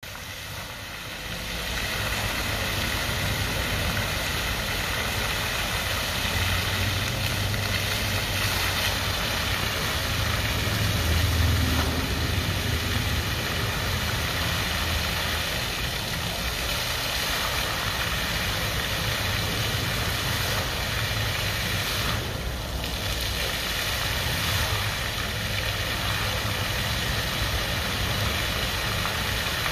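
Multijet floor-level fountain running, its water jets splashing down onto the basin and paving in a steady rush, with a low hum underneath. It grows louder over the first two seconds.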